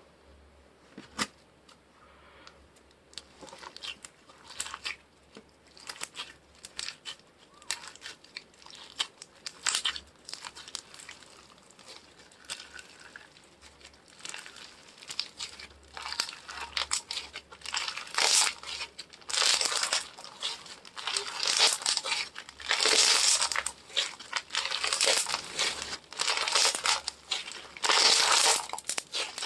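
Hands crinkling and crackling something close to the microphone: scattered soft clicks at first, growing louder and denser from about halfway through.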